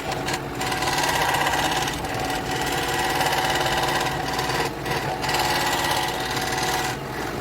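Scroll saw running steadily, its reciprocating blade cutting PVC pipe, with a few brief dips in level.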